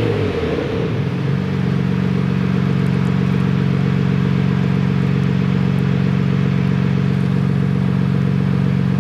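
XHAUST active-sound exhaust speaker playing a synthesized engine sound on its BMW M5 profile. Its pitch falls off a rev and settles about a second in into a steady, unchanging idle tone.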